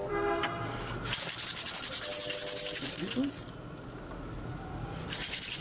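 Beaded gourd rattle shaken fast and evenly in two long runs, the first starting about a second in and the second near the end. A short voiced sound comes right at the start.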